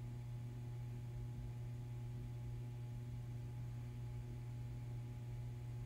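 Faint, steady low hum with a few fainter steady higher tones over it, unchanging throughout.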